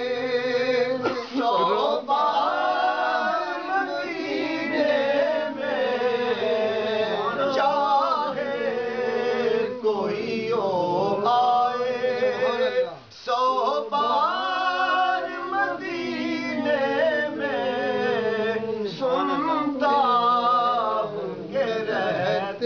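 Male voice singing a naat, an Urdu–Punjabi devotional song, holding long melismatic phrases whose pitch slides and wavers, with a short pause about thirteen seconds in.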